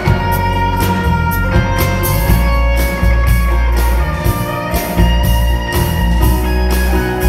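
Live band playing an instrumental passage with no singing: electric and acoustic guitars over bass and a steady beat.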